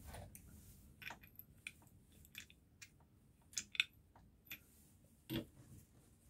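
Hands working on a Triumph T140 Bonneville's clutch assembly: scattered light clicks and taps, with one louder knock about five seconds in.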